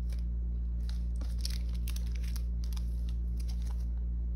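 Clear plastic photo card sleeves crinkling as sleeved cards are handled, a run of short crackles over a steady low hum.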